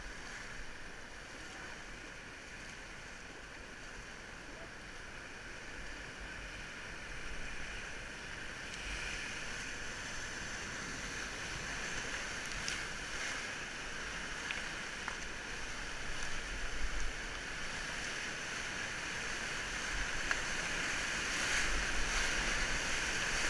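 River water rushing and churning around an inflatable raft, slowly growing louder, with a few short splashes along the way.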